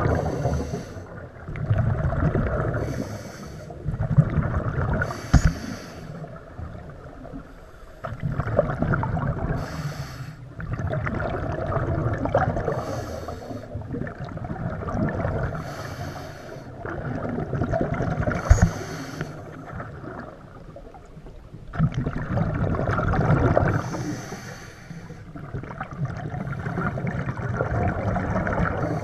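Scuba diver breathing through a regulator underwater. Each breath brings a hissing draw and then a rush of bubbling exhaust, and the cycle repeats every few seconds.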